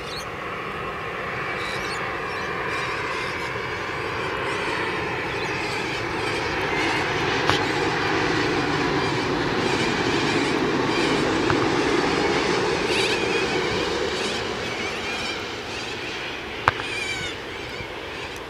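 Boeing 787-8 Dreamliner on final approach, its Rolls-Royce Trent 1000 turbofans whining and rushing as it flies past, growing louder to a peak about twelve seconds in and then fading. A sharp click near the end.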